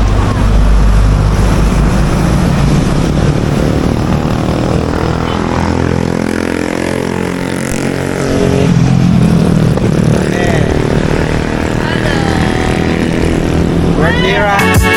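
Motorcycle engine running while riding, with a steady rush of road and wind noise. Music comes in near the end.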